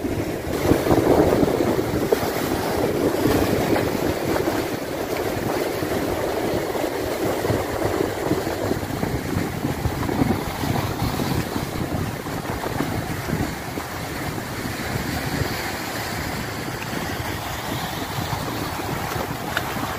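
Ocean surf breaking and washing over rocks in a steady rush, with wind buffeting the microphone.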